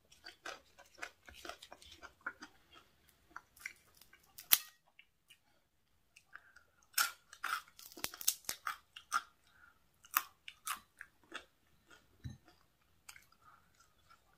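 A person chewing and crunching a mouthful of papaya salad and fried squid: a run of small crisp crunches and clicks. The loudest is a sharp crunch about four and a half seconds in, and there is a thicker run of crunches around seven to nine seconds in.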